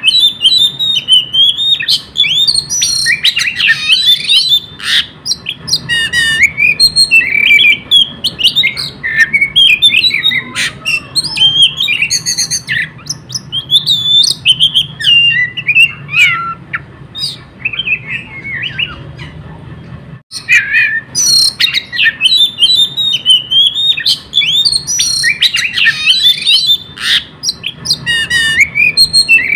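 Oriental magpie-robin (kacer) singing nonstop in the 'konslet' state: a rapid, unbroken run of varied whistles and chirps mixed with harsh notes. There is a short lull about two-thirds of the way through.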